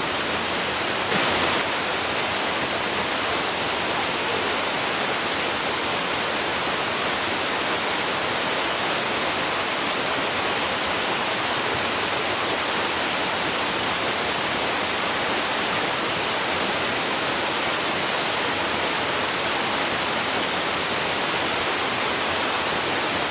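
Steady rush of a waterfall: an even, unbroken hiss of falling water across all pitches, slightly louder for a moment about a second in.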